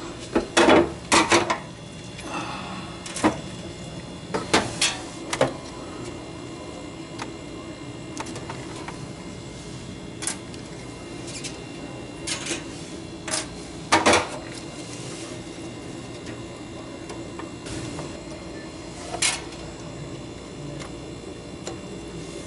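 Plastic tubing and fittings being handled with gloved hands: scattered clicks and knocks, a cluster in the first second and a half, several more a few seconds in, and a strong one about 14 seconds in, over a steady low hum.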